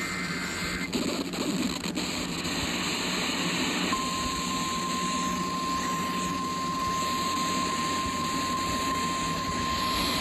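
Emergency alert over a radio receiver: the tail of a SAME data burst, a shrill two-tone digital warble, cuts off about a second in, leaving static hiss. About four seconds in, a single steady warning alarm tone begins and holds over the hiss, the 1050 Hz tone that precedes a National Weather Service warning.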